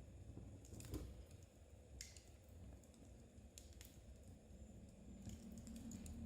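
Metal knitting needles clicking faintly and irregularly, a few sharp ticks several seconds apart, over a soft low rumble.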